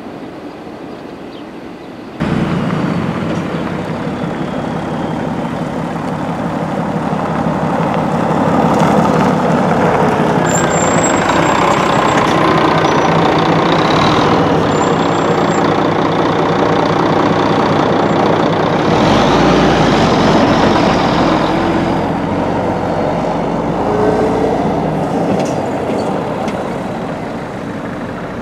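A coach's diesel engine running at close range, then pulling away: the sound comes in suddenly about two seconds in, builds, swells with a deep rumble about two-thirds of the way through, and eases off near the end.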